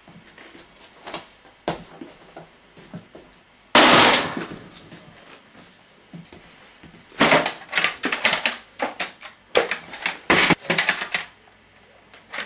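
A loud crash about four seconds in, then a run of clattering knocks and bangs from hard objects.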